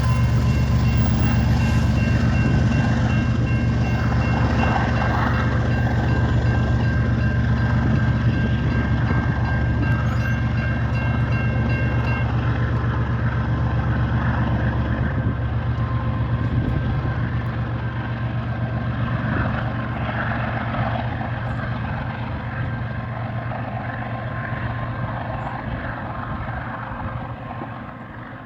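Intermodal freight train rolling past: a steady heavy rumble of wheels on rail, with thin high tones of wheel squeal that stop about twelve seconds in. The rumble fades away over the last few seconds as the train draws off.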